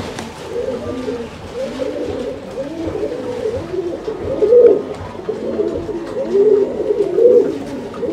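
Many domestic pigeons cooing at once, their low warbling coos overlapping without a break. One coo stands out louder about halfway through, and another near the end.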